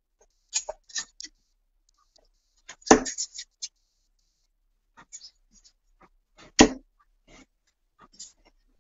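Steel-tip darts striking a bristle dartboard: two sharp thuds about three and a half seconds apart, with faint clicks and taps between.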